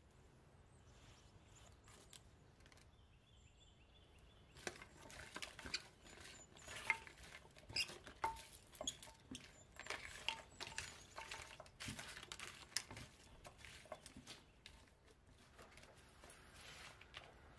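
Kitchen tongs stirring and tossing chopped raw vegetables in a glass baking dish: a soft, wet rustle with light clicks of the tongs against the glass. It starts about five seconds in and thins out near the end.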